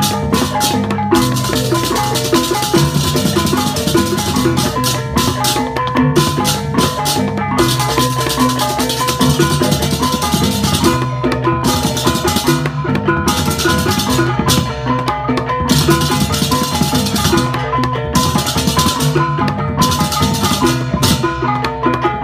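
Percussion music in the manner of Balinese gamelan: drums and tuned metal percussion play a busy, repeating melodic pattern, with bright metallic cymbal-like washes coming and going.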